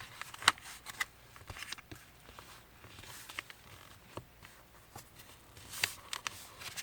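A sheet of paper being folded and pressed into creases by hand: soft rustling with a few sharp crackles of the paper.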